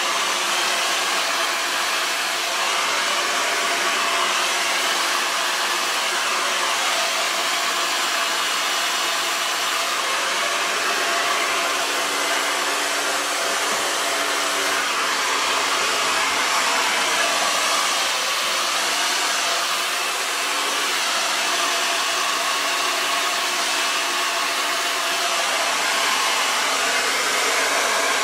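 Handheld hair dryer running steadily: a constant rush of air over a steady motor hum.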